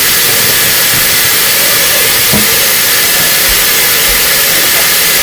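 Tap water running steadily into a container of grapes to rinse them, a continuous even hiss.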